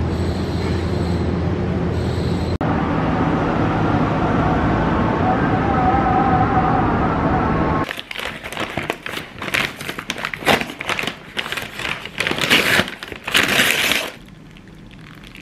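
A steady low background rumble for the first half, then, about eight seconds in, a paper McDonald's takeaway bag being opened and rustled, with sharp irregular crinkles for about six seconds.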